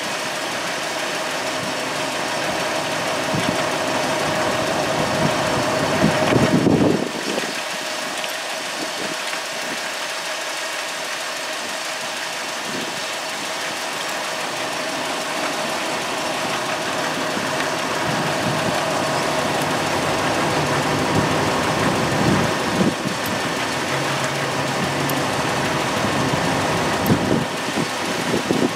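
Dodge Caravan engine idling steadily, with one brief louder swell about six to seven seconds in.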